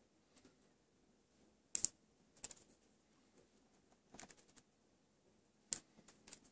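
Fingernails prying at and cracking the dry hull of a squash seed: a scattering of small, sharp clicks and crackles. The sharpest comes just under two seconds in, with a little cluster around four seconds and a few more near the end.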